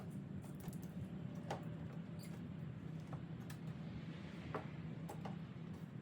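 Faint, scattered light clicks and scratches of hands working with small parts, a few each second at most, over a steady low hum.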